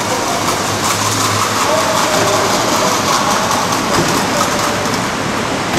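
Indistinct voices of a crowd over a loud, steady rushing background noise.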